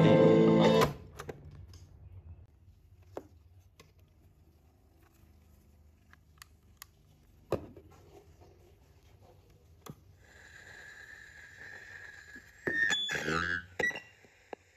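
Music playing through a National radio-cassette recorder's speaker cuts off abruptly about a second in, followed by a few scattered clicks of the set being handled. Later a steady high electronic whistle comes through the speaker, then a short burst of warbling sound near the end.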